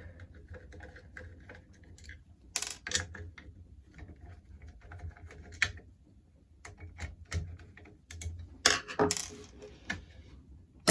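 Scattered metallic clicks, rattles and knocks of a five-lever mortice lock being taken apart by hand to get at its levers, with a few sharper knocks in small clusters.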